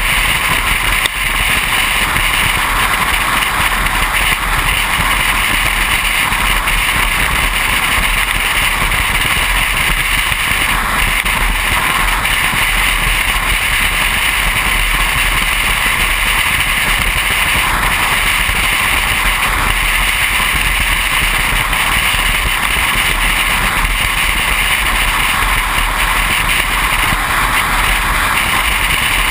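Steady noise of a car driving at highway speed: an even rush of tyre and wind noise with no changes.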